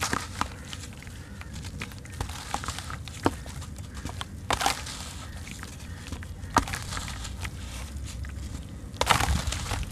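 A soaked lump of sand-cement crumbling and squeezed apart by hand over a basin of water, with scattered soft crackles and wet pieces and water splashing back into the basin; a brief louder splash about four and a half seconds in and a longer louder one near the end.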